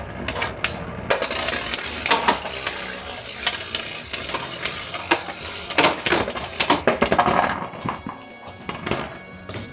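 Two spinning Beyblade tops, one a 3D-printed plastic Ultraus, whirring and clashing in a plastic stadium, with repeated sharp clicks and clacks as they collide. The hits cluster in two runs and thin out near the end. Music plays throughout.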